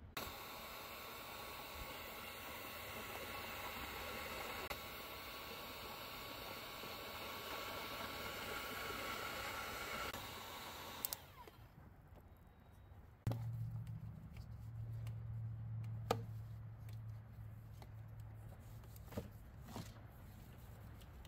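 Electric heat gun blowing steadily as it shrinks heat-shrink tubing over a crimped ring terminal on a red wire, switched off about eleven seconds in. After a knock a couple of seconds later, a low steady hum runs on with a few sharp clicks.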